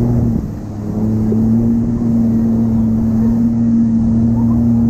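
Jet ski engine running steadily at speed while towing an inflatable biscuit, with the rush of water and wake. Its note dips briefly about half a second in, then comes back steady.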